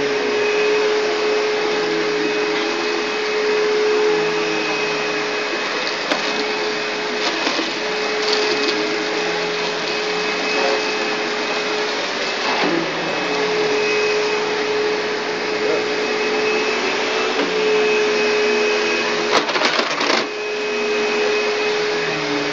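A shop vac and a household vacuum cleaner running at once, with the shop vac's hose plugged into the vacuum's hose socket. Their motors give a steady loud whine and rush of air, with a few brief clicks along the way.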